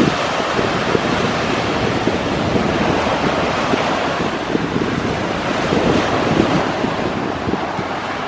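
Small sea waves breaking and washing up a stony beach, a steady surf wash, with wind buffeting the microphone.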